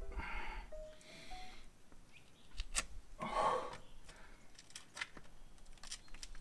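A boulderer's hard, forceful breaths while pulling through moves on an overhang: short puffs, with the loudest exhalation about three and a half seconds in. A sharp tap comes just before it, and a few fainter taps follow.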